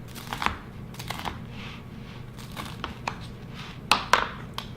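Cooked bacon being handled and broken up for the bowl: scattered crackling and crinkling, with a few sharper clicks about four seconds in.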